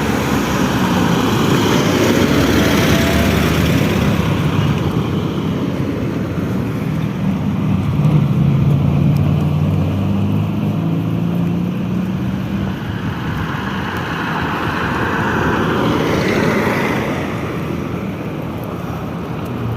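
Car driving along a road, heard from inside: a steady low engine hum over tyre and road noise, swelling a little a couple of seconds in and again about three quarters of the way through.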